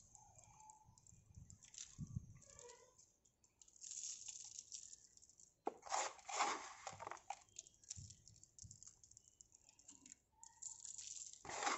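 A hand scooping crumbly potting soil from a plastic tub and sprinkling it over seed cups: gritty rustling and crunching in several short bursts, the loudest about six seconds in.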